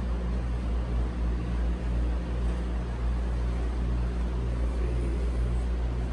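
Steady low hum and rumble, even throughout, with no speech.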